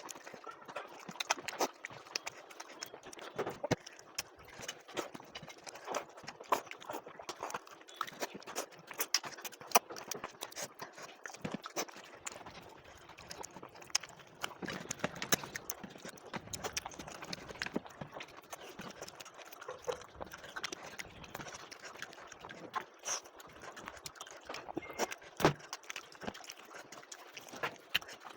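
Close-up mouth sounds of someone eating rice: chewing and lip smacks, heard as a steady run of irregular clicks.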